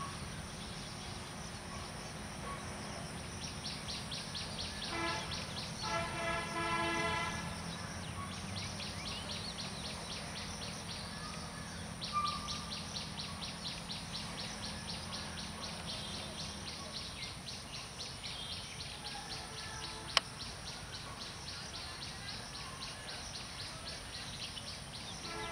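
Rural outdoor ambience with fast, evenly pulsing insect chirps over a low steady hum that stops about two-thirds of the way through. A short call rises out of it about six seconds in, and a single sharp click comes near the end.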